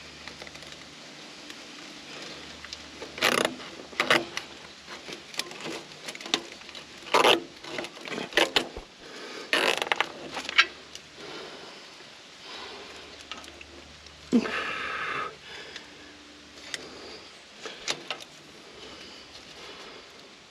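Irregular clicks, knocks and scrapes of hand work around a skid steer's hydraulic hoses, with a longer rasp about fourteen seconds in.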